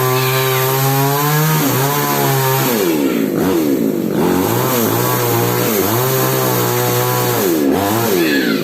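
Falcon mini chainsaw running flat out, then its speed sagging and recovering four or five times as the chain cuts into mango wood.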